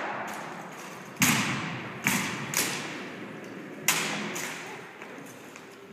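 Sharp impacts from a rifle drill team's routine: four loud cracks, about a second in, at two, two and a half, and four seconds, each echoing away.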